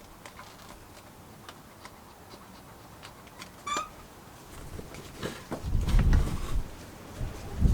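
Hands-on work noises: scattered light clicks and a brief squeak, then louder low rustling and thumps from about five and a half seconds in.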